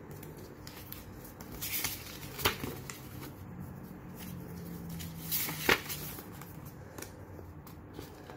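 A paper instruction leaflet is handled and unfolded, rustling softly, with two louder crisp crackles about two and a half and five and a half seconds in.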